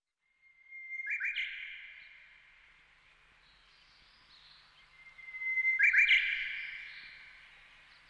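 Two bird-like calls, about five seconds apart: each a held whistle that ends in a sharp double chirp and fades away.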